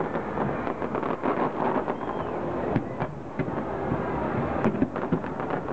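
Fireworks display heard from a distance: a run of irregular bangs and crackles over a steady background rumble.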